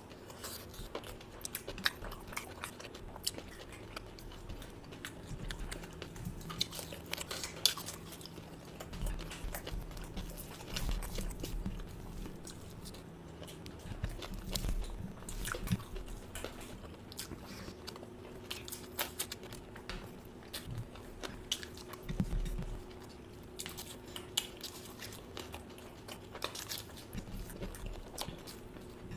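A person eating and chewing, with irregular crunches and wet mouth clicks. A faint steady hum runs underneath.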